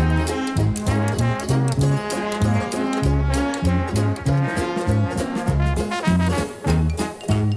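Upbeat background music with brass instruments over a bouncing bass line and a steady drum beat.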